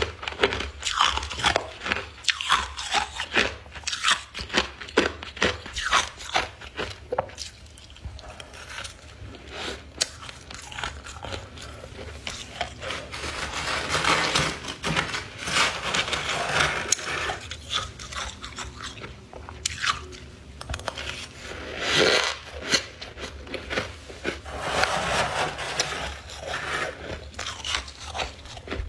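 Close-up biting and chewing of chunks of white freezer frost, crisp crunching. The crunches come quick and separate in the first several seconds, then turn softer and grainier, with a few louder spells of chewing.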